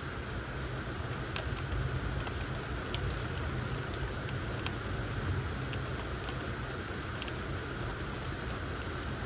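Steady rain from a thunderstorm shower, an even hiss with scattered sharp drop ticks, over a continuous low rumble.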